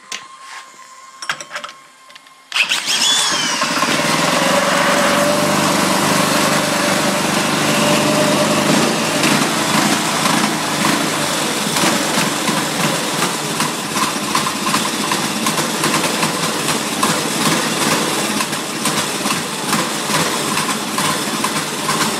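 Turbocharged Predator 212 single-cylinder four-stroke engine catching about two and a half seconds in, after a few faint clicks, then running steadily at idle. A brief falling whine comes just after it catches.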